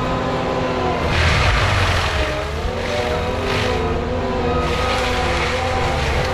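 Skid steer diesel engine running under load with a forestry mulcher, its pitch dipping and recovering as it works. Several bursts of harsher grinding noise come and go over it.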